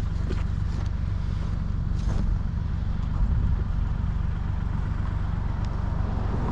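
A heavy-equipment engine running steadily at low speed, a constant low drone, with a couple of light clicks or knocks.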